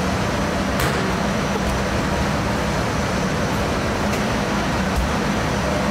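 Steady roar of commercial kitchen ventilation with a low hum, and a few light knocks.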